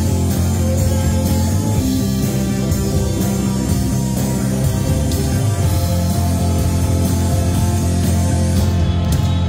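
Live band playing a loud rock number, with two saxophones, electric guitar and drums.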